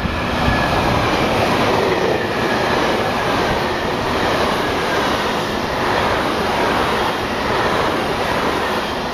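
JR 383 series limited express Shinano passing through the station at speed without stopping: a loud, steady noise of wheels and rushing air from the train going by.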